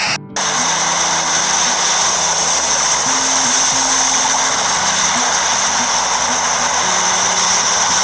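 Steady rushing of sea surf, with soft background music of low held notes underneath. The surf noise drops out for a split second just after the start.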